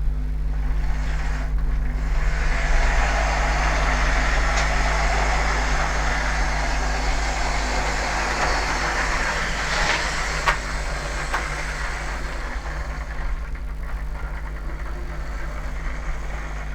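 Lima Class 40 OO-gauge model locomotive running along the track, its small electric motor whirring and wheels rolling, with a few sharp clicks. The whirr builds up about two seconds in and fades off near the end, over a steady low hum.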